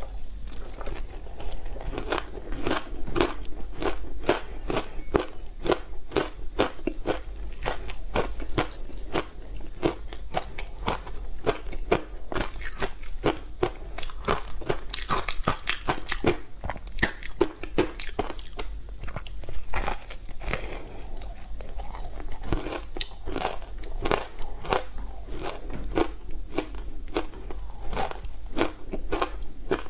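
Close-miked biting and chewing of frozen block ice made from matcha tea and sweet potato powder: a rapid run of sharp crunches and crackles, several a second.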